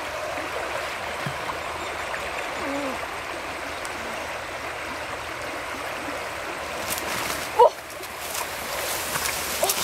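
River water rushing steadily. A single short call sweeps quickly up and down in pitch about three-quarters of the way through.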